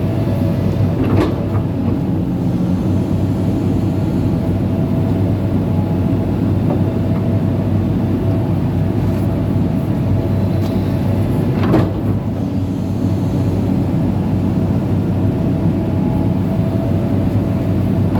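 Amphibious pontoon excavator's diesel engine running steadily as the machine moves through mud, with two sharp metallic knocks, one about a second in and one about two-thirds of the way through.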